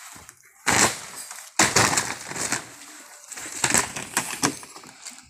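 Sheets of scrap plywood thrown down onto a heap, landing in several loud clattering crashes: one about a second in, then a run of crashes around two seconds and again around four seconds.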